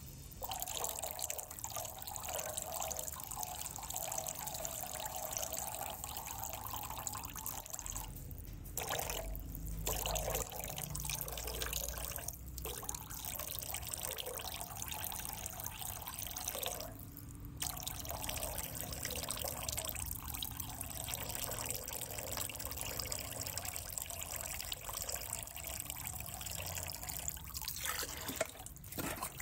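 Water in an aquarium trickling and dripping steadily, cutting out briefly a few times.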